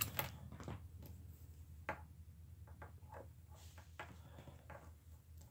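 Faint handling sounds of nylon paracord being threaded and pulled through a braid by hand: scattered light ticks and short rustles at irregular intervals, over a low steady hum.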